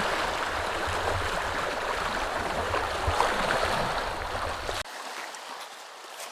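Steady rushing of lapping water with wind rumbling on the microphone; about five seconds in it cuts off suddenly to a quieter background.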